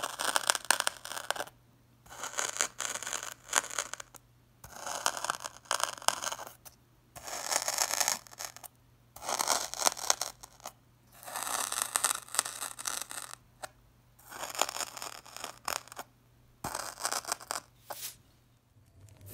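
Flat metal tool scraping and cutting through packed coloured sand, a crunchy grating sound. About nine slow strokes, each a second or two long, with short pauses between them.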